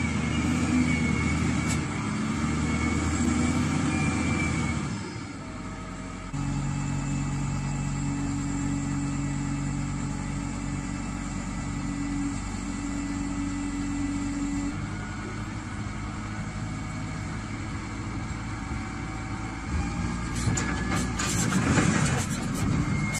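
Heavy diesel engines of wheel loaders running hard under load, the engine note shifting to a new steady pitch about six seconds in. Near the end comes a short burst of clattering.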